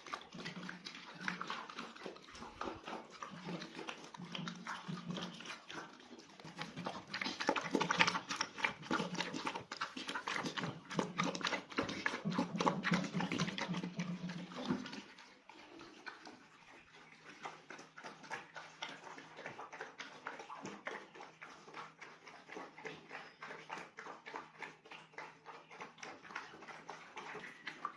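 Dog eating fast from a big basin of rice and meat, with quick, continuous chewing and lapping clicks; louder in the first half, quieter after about fifteen seconds.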